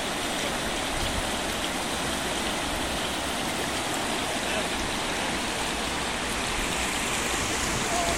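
Steady rushing of floodwater from the River Stour in flood at the mill.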